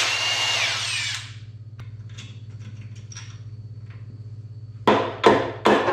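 A power tool runs for about a second, its pitch falling as it winds down, while head bolts come out of a 4.3 L V6. Near the end come sharp, evenly spaced strikes, about two and a half a second, like hammer blows knocking the cylinder head loose.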